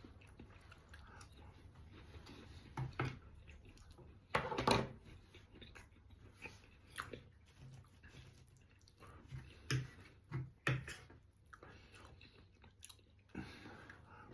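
A person chewing a mouthful of chicken, leek and bacon pie with flaky pastry: faint chewing and mouth sounds with scattered soft clicks, the loudest about four to five seconds in.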